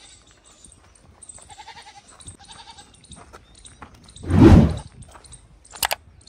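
Faint animal bleating, then a loud, short burst of low, rumbling noise about four seconds in, and a few sharp clicks near the end.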